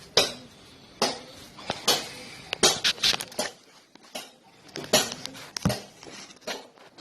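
An irregular series of sharp knocks and clinks, about a dozen, some in quick clusters, with a gap in the middle.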